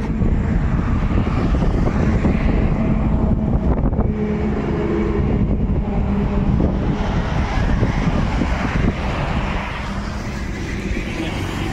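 Road traffic going by steadily on a highway, mixed with wind on the microphone.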